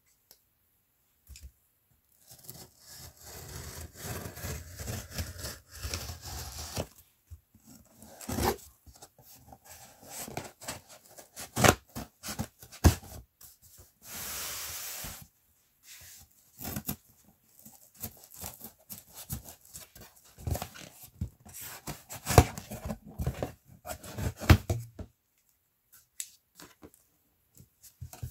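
Scissors slitting the packing tape on a cardboard shipping box, with tape tearing, scattered knocks and rustles as the cardboard is handled, and the box flaps being pulled open near the end.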